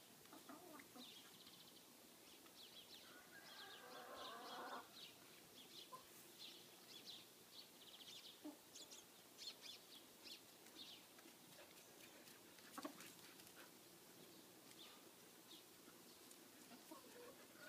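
Domestic hens clucking faintly, with many short, high chirps scattered throughout. A denser, slightly louder stretch of calling comes about three to five seconds in.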